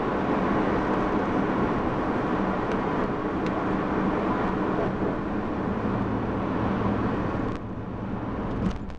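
Wind rushing over the microphone and tyre noise from a bicycle rolling along, with a few faint clicks; the noise drops off about seven and a half seconds in as the bike slows.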